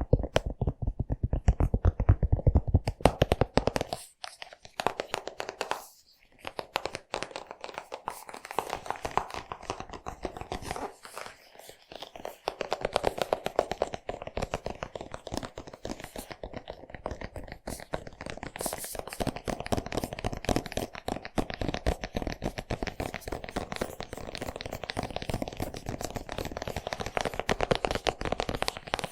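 Close-up haircutting sounds: scissors snipping rapidly through hair with crunching and rustling of the hair. The first four seconds are louder and heavier, then the snipping goes on lighter and steady, with a few short pauses.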